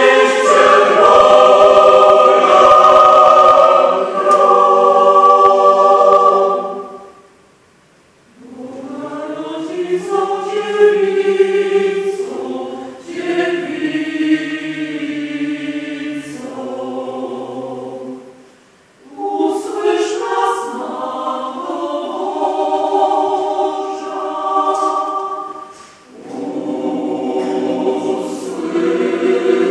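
Mixed choir of women's and men's voices singing in long phrases, with short breaks between them; the opening phrase is the loudest, and the later ones are softer.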